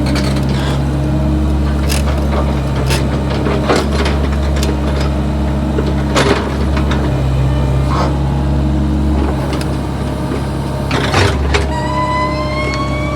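Backhoe's engine running steadily under load, with several sharp knocks and clanks spread through, and a high whine that rises gently near the end.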